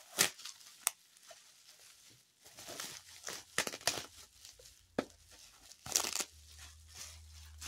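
Clear plastic bag and bubble-wrap packaging being handled and pulled open: irregular crinkling and rustling with short tearing sounds and sharp crackles.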